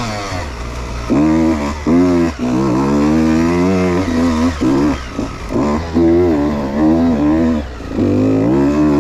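Two-stroke engine of a Beta 125 RR Racing dirt bike ridden hard: revs climbing and falling again and again, with many quick throttle chops.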